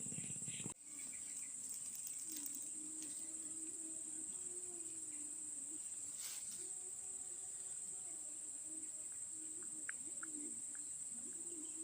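Steady, high-pitched chorus of crickets or similar insects, with a faint wavering low hum underneath.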